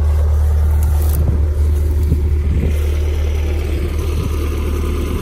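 Bobcat skid-steer loader's engine running steadily, a loud low drone, with a few light knocks and rattles about two seconds in.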